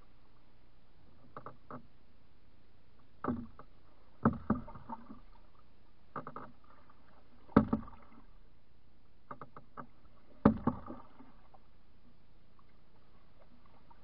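Canoe paddling: a wooden paddle knocks against the canoe hull in sharp knocks that come in clusters with each stroke, the loudest about every three seconds, and stop for the last few seconds.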